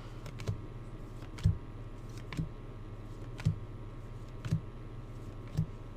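Paper baseball cards being flipped through one at a time: a soft tap about once a second over a steady low hum.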